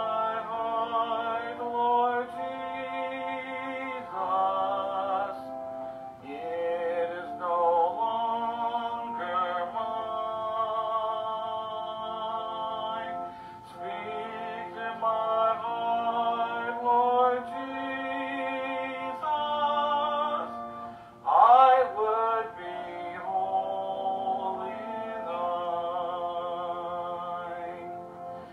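Electronic church organ playing a slow hymn, with a man singing along, heard back through laptop speakers and sounding thin, with no high end.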